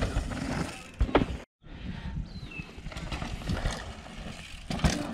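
Downhill mountain bikes coming down a rocky dirt track: tyres crunching over dirt and rock and the bikes clattering, with sharp knocks about a second in and near the end, over low wind rumble on the microphone. The sound cuts out for a moment about a second and a half in.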